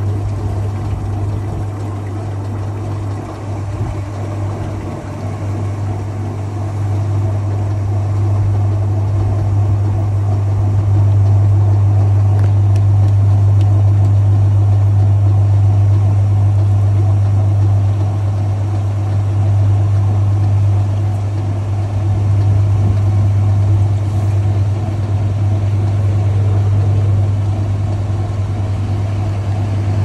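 Maytag Heritage top-load washing machine in its spin cycle: the motor and basket hum steadily, growing louder over the first ten seconds or so as the basket comes up to speed, then holding.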